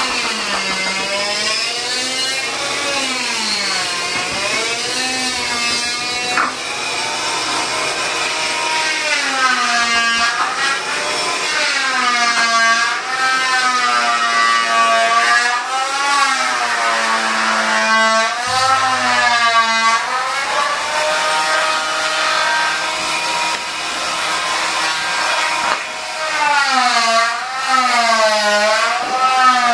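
Paper towel squeaking on the glass panel of a frameless shower as it is wiped back and forth, a continuous squeal that rises and falls in pitch with each stroke.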